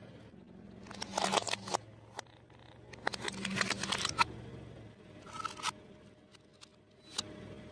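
Short bursts of crackling and crunching as a car tyre rolls over and crushes objects, one about a second in and a longer one around three seconds in. Lighter clicks follow later, over a faint low hum.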